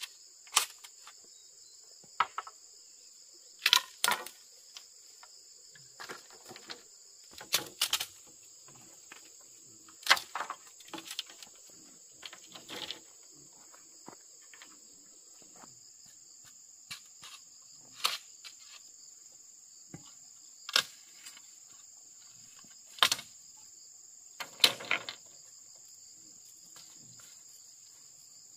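Sharp knocks and taps at irregular intervals, a second or a few seconds apart, some in quick pairs, over a steady high-pitched drone of insects.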